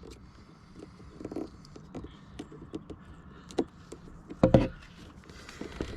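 Scattered light clicks and taps of hands working on an electrical cable and its fittings in a cramped space, with one louder knock about four and a half seconds in.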